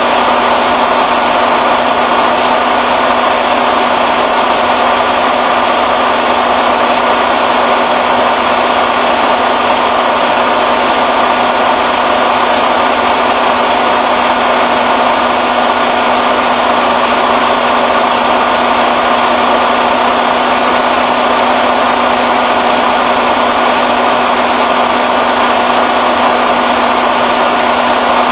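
Steady mechanical drone with a constant hum from a semi-truck fueling at a diesel pump.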